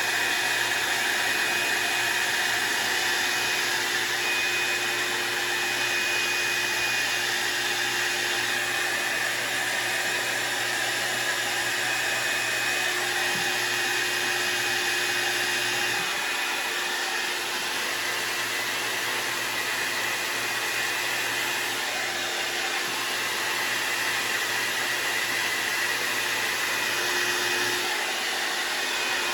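Hot air styling tool (hair dryer type) blowing steadily, used to heat-style the synthetic fibers of a wig.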